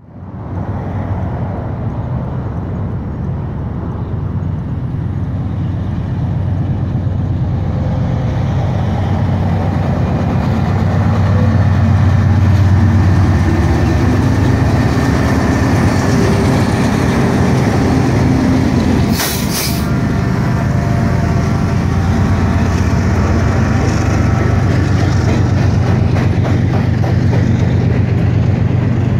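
BNSF diesel freight locomotives pulling a departing train under power, their engines making a steady low drone that grows louder as they come by, followed by autorack freight cars rolling past on the rails. A brief sharp hiss cuts in about two-thirds of the way through.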